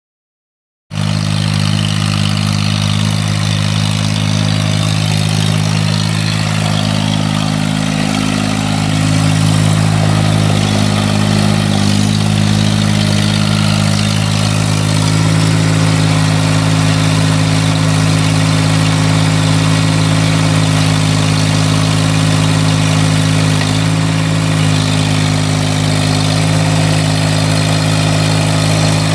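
Kubota three-cylinder diesel engine of a Spyder truck-mounted forklift running steadily, heard from about a second in, a little louder from about nine seconds in.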